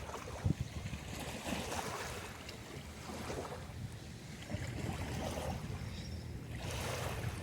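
Sea waves washing onto a sandy beach, the surf swelling twice, with a low rumble of wind on the microphone underneath.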